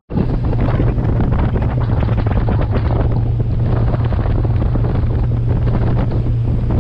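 Bass boat's outboard motor running at speed, a steady low drone under heavy wind buffeting the microphone and water rushing past the hull.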